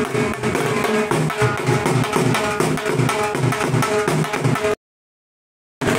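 Dhol drum beaten in a fast, steady rhythm, with a held melodic tone running above it. The sound cuts out completely for about a second near the end.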